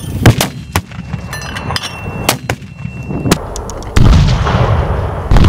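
Mortars firing: a sharp report just after the start, then several more cracks of varying strength over the next three seconds. About four seconds in, a loud, steady noise with a heavy low rumble takes over.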